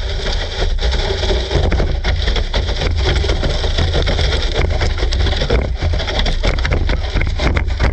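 GPTOYS S912 electric RC car driving over grass: a steady rumble and rattle of its motor and wheels, heard up close from a sled camera bouncing along behind it, with a run of short knocks and clatters in the second half.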